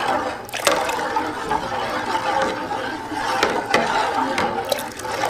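Long-handled steel spoon stirring milk in a large aluminium pot, scraping and clinking against the metal, with several sharp clicks through the steady scraping.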